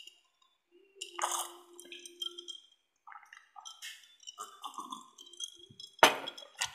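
Close-miked drinking from a glass of iced drink: a run of small gulping and swallowing sounds, with ice shifting in the glass. Just after six seconds the glass is set down on the wooden table with a sharp knock.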